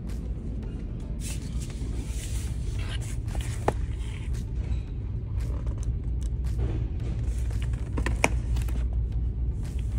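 Shop interior ambience: a steady low rumble with scattered light clicks and rustles, and two brief high squeaks, one near the middle and one near the end.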